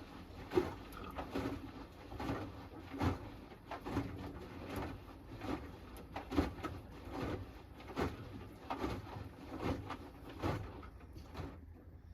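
Hoover Axi 10 kg front-loading washing machine in the wash phase of its Rapid 30-minute programme. The drum turns with a steady low hum, and laundry and water slosh and thud softly about once a second. The tumbling stops about eleven seconds in.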